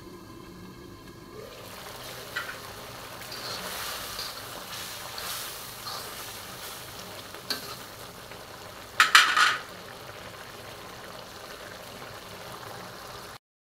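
Frog curry sizzling and bubbling in oil in a wok while it is stirred. A few light clinks of the utensil on the pan come through, and a louder burst of scraping and clatter about nine seconds in.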